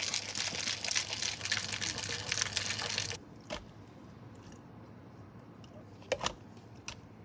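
Milk tea and ice being shaken hard in a plastic cocktail shaker, a dense, fast rattle that stops abruptly about three seconds in. After that come a few light taps and clicks as tapioca pearls are scooped into plastic cups.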